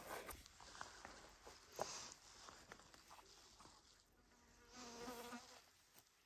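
Faint rustling and small clicks, then a flying insect buzzing close by for about a second near the end, a steady low drone.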